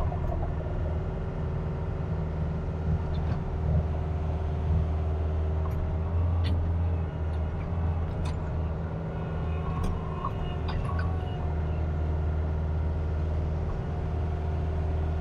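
Kubota RX-503S mini excavator's diesel engine running steadily from inside the cab while the arm digs and moves earth, with a few short clicks and knocks.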